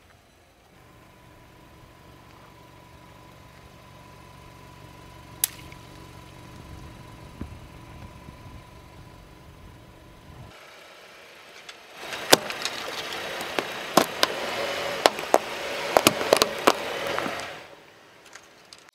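A car engine runs with a low, steady hum that slowly grows louder. Then, from about twelve seconds in, a car tyre crushes something brittle and white for about five seconds: a dense run of sharp cracks and crunching that stops abruptly.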